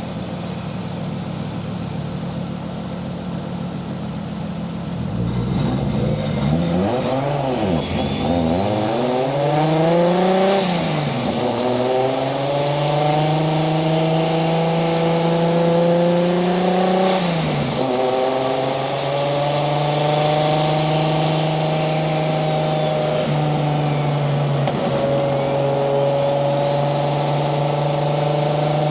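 Turbocharged Toyota 1JZ-VVTi inline-six in a Nissan 240SX, running steady at first, then accelerating hard, its pitch climbing and dropping sharply at two upshifts before settling into a steady cruise. A high turbo whistle rises with the revs and rises and falls again over the cruise.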